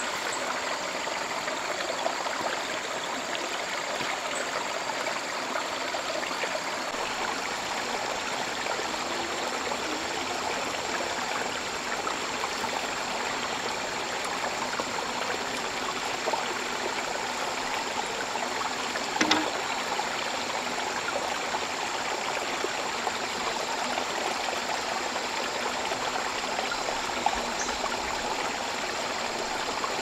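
Steady rushing and trickling of a flowing stream, with a thin high tone held above it and a single knock about two-thirds of the way through.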